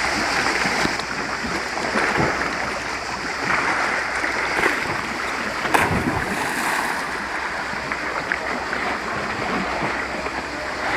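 Sea water sloshing and lapping, with one sharp splash about six seconds in as a person plunges into the sea.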